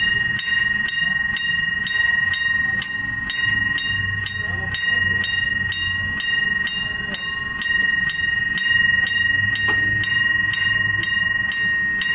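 Railway level-crossing warning alarm ringing, an even ding-ding at about two strikes a second over a steady high tone.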